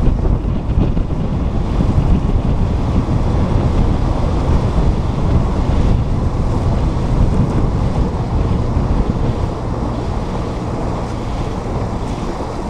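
Heavy wind buffeting on the microphone and water rushing past the hull of a bass boat running at speed.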